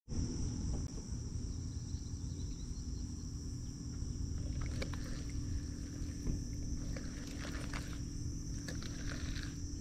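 Insects buzzing in a steady, even high chorus over a low rumble, with a few small clicks here and there in the second half.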